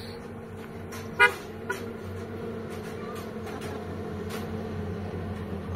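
A motor vehicle's engine running steadily and growing slowly louder, with a short horn toot about a second in and a fainter one just after.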